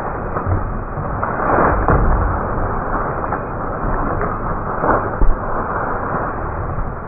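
A dog splashing through a shallow pool of water, over a steady noisy rumble. A short sharp knock about five seconds in.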